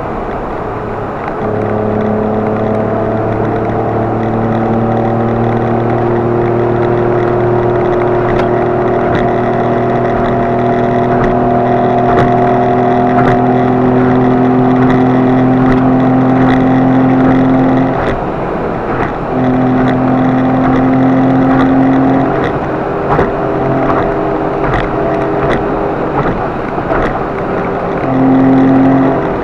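Car engine drone and road noise heard inside the cabin while driving. The engine note climbs slowly and steadily, drops away about 18 seconds in, returns briefly, and swells once more near the end.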